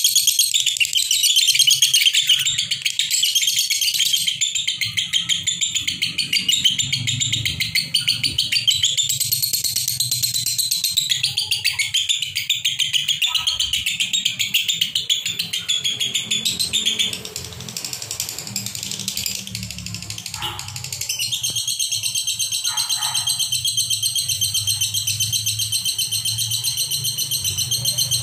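Two pairs of caged lovebirds, Fischer's and masked, chattering shrilly and rapidly without a break: the nonstop 'konslet' singing that lovebird keepers prize. The chatter eases a little for a few seconds past the middle, then settles into one long, even, fast trill toward the end.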